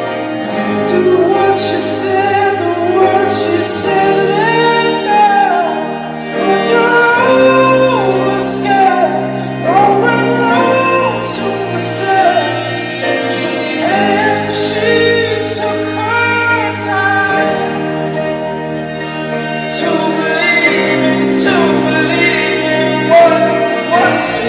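Background music: a slow song with a singing voice over held chords.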